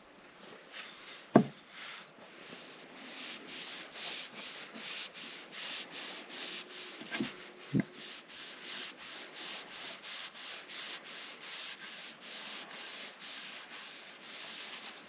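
Cloth rubbing a coat of natural finish along a wooden wand in quick back-and-forth strokes, about two a second. A few sharp knocks stand out, about a second and a half in and twice near the middle.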